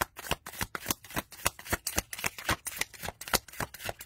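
Overhand shuffling of The Unfolding Path tarot deck, a deck printed on thin, flimsy cardstock: a quick, even run of light card slaps, about five a second.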